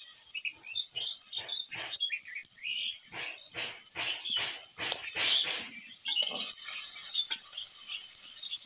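A run of short, repeated animal calls in quick succession, with birds chirping. From about six seconds in, onions fry with a hiss in a clay pot over a wood fire as a metal ladle stirs them.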